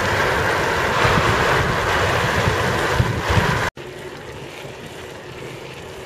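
Wind buffeting the camera microphone on a moving bike, a loud rumbling hiss with road noise under it, cutting off abruptly a little under four seconds in to a quieter steady wind hiss.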